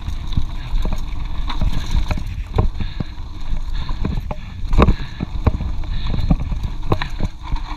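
Mountain bike clattering down a rough dirt trail, with irregular knocks and rattles as it hits bumps, over a steady low rumble of wind on the microphone.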